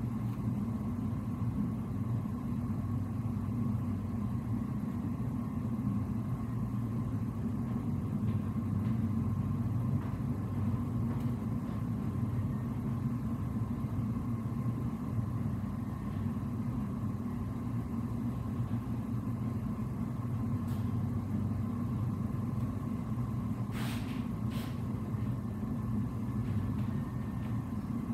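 Steady low hum of a ship's machinery heard on its bridge, with a faint steady whine above it. Two short clicks near the end.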